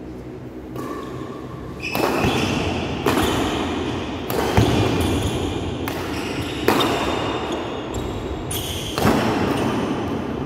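Badminton rally: five sharp cracks of rackets hitting the shuttlecock, a second or two apart, with short squeaks of shoes on the court floor, all echoing in a large hall.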